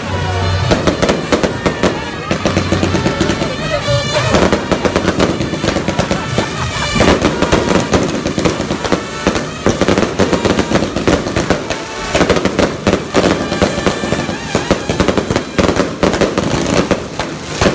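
Firecrackers crackling in a rapid, unbroken string of sharp pops, mixed with music and voices.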